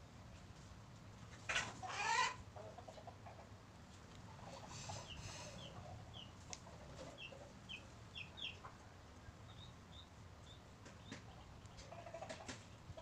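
Birds calling in the background: one loud call about two seconds in, then a series of short, high chirps.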